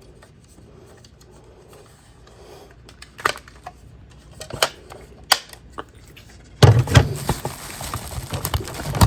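Sharp plastic clicks and knocks from a smoke alarm being handled: three separate clicks in the middle, then louder rustling and clattering with more clicks from about two-thirds of the way in.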